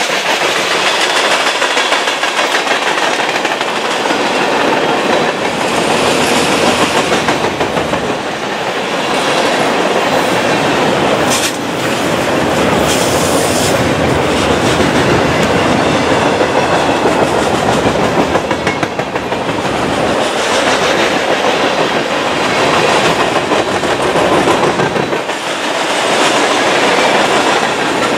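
Mixed freight train's tank cars and covered hoppers rolling past close by: a loud, steady rumble of steel wheels on rail with a rhythmic clickety-clack over the rail joints. A brief high-pitched squeal comes a little before the middle.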